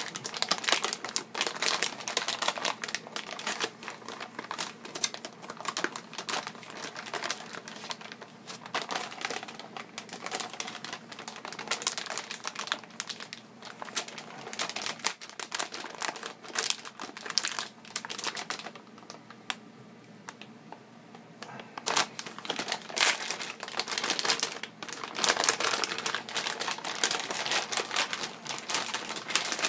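Crinkly plastic anti-static bag being handled and unwrapped from around a graphics card: a dense, continuous stream of sharp crackles, easing off briefly about two-thirds of the way through before picking up again.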